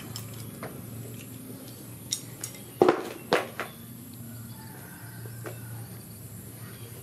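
Ceramic plate clinking and knocking as baby monkeys pick rice from it: a handful of short, sharp knocks clustered around the middle, the loudest just under three seconds in.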